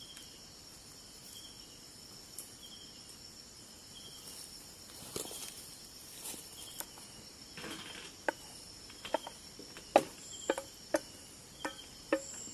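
Crickets and other night insects chirping: a continuous high trill with a shorter chirp repeating about once a second. In the last few seconds a run of sharp clinks and knocks comes in, the loudest about ten seconds in.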